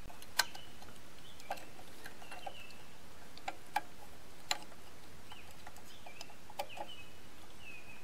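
Scattered light metallic clicks and ticks of an Allen wrench seating in and turning the Allen bolts that hold the wheel's cover shield on a band blade sharpener, with faint high chirps in the background.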